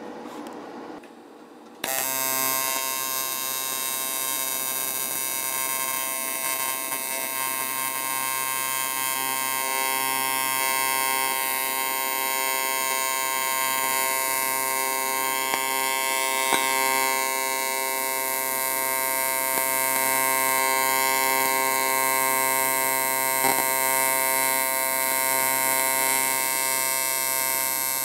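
AC TIG welding arc on cast aluminum: a steady electric buzz that strikes about two seconds in and holds, with a couple of brief crackles, as a tack weld is laid on the dirty casting.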